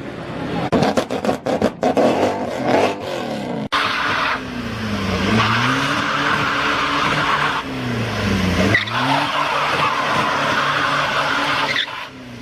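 A performance car's exhaust popping and crackling in rapid bursts for the first few seconds. Then comes a burnout: a steady tyre squeal over the engine, whose revs twice drop and climb again.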